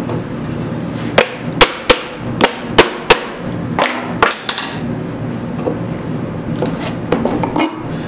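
Mallet striking a clamped white oak panel during glue-up: about nine sharp knocks in quick succession in the first half, then a few lighter taps near the end.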